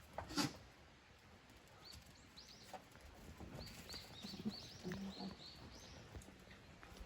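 A small bird chirping in a quick series of short, high, arched notes, with one sharp knock about half a second in.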